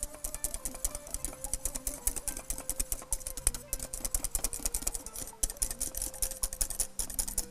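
Small wire whisk beating a milk and cornstarch cream in a stainless steel saucepan: fast, continuous metallic clicking and scraping of the tines against the pan as the cream thickens on the heat.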